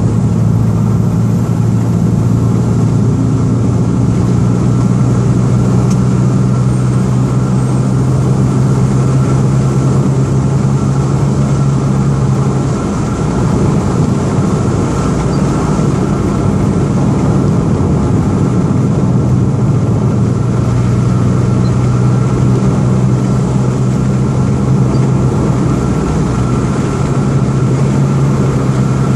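Perodua Axia's engine droning steadily under way, heard inside the cabin over tyre and road noise. It eases off briefly about halfway through, then picks up again.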